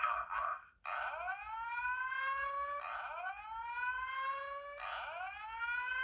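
Fire alarm system sounding: a short horn blast, then from about a second in a rising whoop evacuation tone from a fire alarm speaker, sweeping up and repeating about every two seconds.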